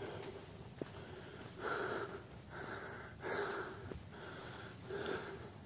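A person breathing hard and heavily, about one loud breath a second, winded from climbing a steep sand dune.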